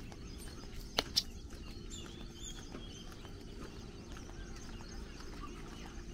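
Roadside outdoor ambience: a steady low rumble with a faint hum, birds chirping, and two sharp clicks a fraction of a second apart about a second in.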